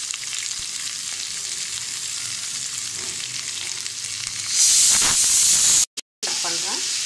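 Sliced ivy gourd frying in oil in a kadai, a steady sizzle. About four and a half seconds in the sizzle grows louder for about a second, then the sound drops out for a moment.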